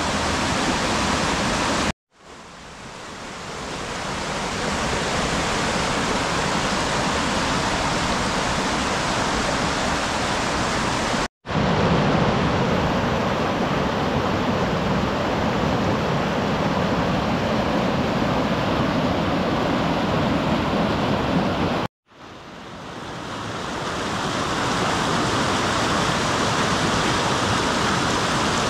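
Mountain stream rushing over rocks in small rapids: a steady, loud rush of white water. It cuts out briefly three times, about two, eleven and twenty-two seconds in, and swells back up after the first and last gaps.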